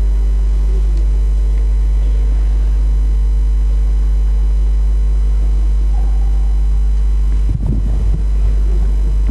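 Steady low electrical mains hum with a buzz of higher overtones, unchanging throughout, typical of a ground hum in a sound system or recording chain.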